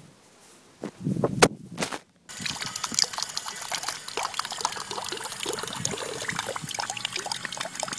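A short knock, then from about two seconds in a drinking fountain (bubbler) running: a jet of water spattering and trickling steadily into its metal basin.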